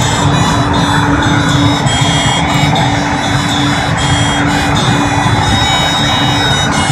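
Steady road and tyre noise of a car driving through a highway tunnel, heard from inside the cabin, with held tones running over it.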